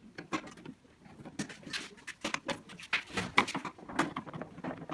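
Irregular small clicks and knocks of hand tools working the nuts on a Honda Activa scooter's front panel while it is being unfastened.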